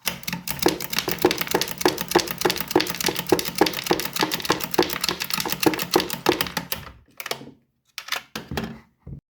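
.22 LR cartridges being pushed one after another into a 20-round Tikka T1x rimfire magazine, each round clicking past the feed lips, about three a second in an even rhythm. A few separate clicks and knocks from handling the magazine follow near the end.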